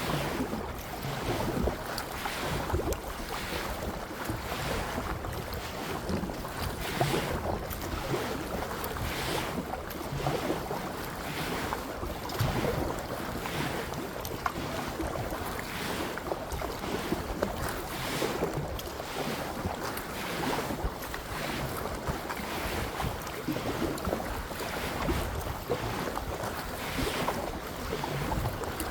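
Kayak paddling: paddle blades dipping and splashing at an even pace over running water, with wind buffeting the microphone.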